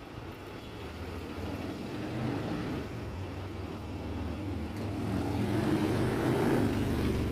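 A motor vehicle's engine and tyres on the street, growing louder as it approaches and coming closest near the end.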